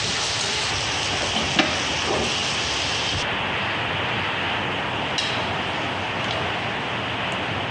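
Pork belly pieces sizzling in a nonstick frying pan as they are stirred with wooden chopsticks, a steady frying hiss with a sharp tap of the chopsticks on the pan about a second and a half in. About three seconds in the hiss turns duller and goes on, with a couple of faint taps.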